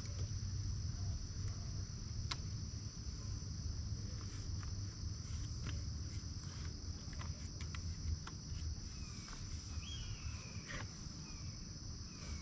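Steady high-pitched chirring of insects, with occasional light clicks and knocks from the plastic bagger parts being handled, and a few short chirps near the end.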